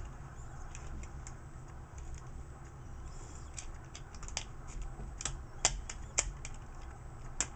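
Hard plastic parts of a Transformers Deluxe Class Sideswipe action figure clicking and snapping as its joints are folded into car mode: a scattered run of small, sharp clicks, coming thicker in the second half.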